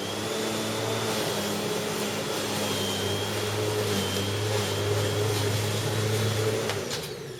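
Bosch Rotak 34 corded electric rotary lawnmower running at full speed with a steady high whine and a low hum. About seven seconds in it is switched off and its motor and blade wind down with a falling whine.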